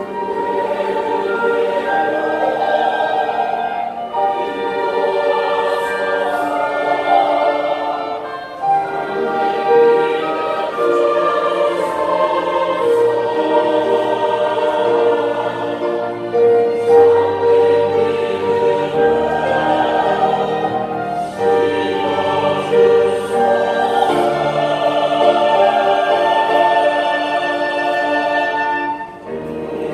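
Large mixed church choir singing an anthem in held, sustained phrases, accompanied by violins, flute and clarinet. There is a brief break in the sound about a second before the end.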